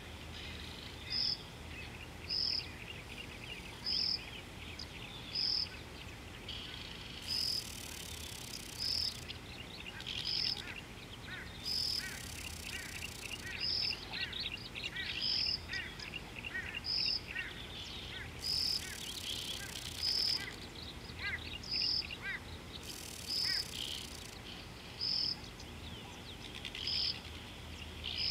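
Birds calling: one repeats a short, high note about every second and a half throughout, while others chatter with quick chirps through the middle. A high hiss comes and goes four times.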